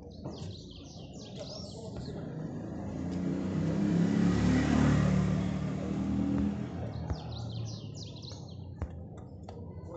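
A motor vehicle passes by, its engine and road noise swelling to a peak about halfway through and then fading away. Birds chirp near the start and again near the end.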